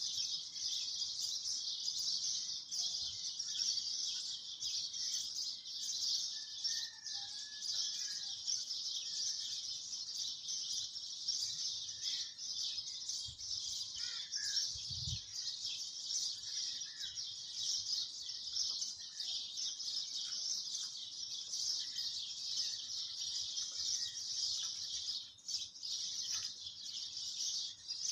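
Steady, high-pitched outdoor chorus of chirping birds, with a few fainter separate calls over it and a couple of low thumps near the middle.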